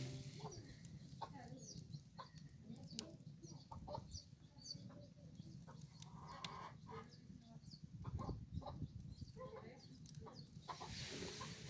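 Faint crackle and snap of a small twig fire burning in a clay oven, with birds chirping and clucking in the background.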